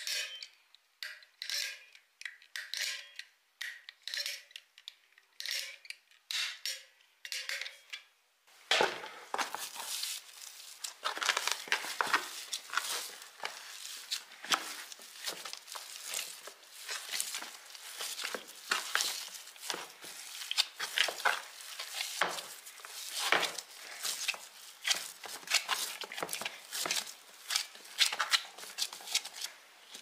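Short squelching squirts from a squeeze bottle laying a bead of blue gel onto a lump of wet mud. From about nine seconds in, a gloved hand kneads the mud, giving a dense run of wet squishing and crackling.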